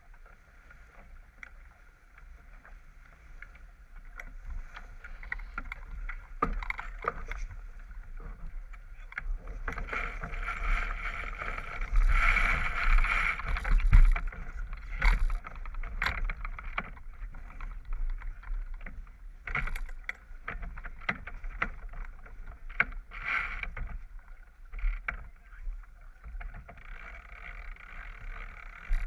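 J/24 sailboat under way and tacking: water rushing along the hull and wind, with scattered sharp knocks and clicks from deck gear. It is quieter for the first few seconds and loudest for a couple of seconds around the middle.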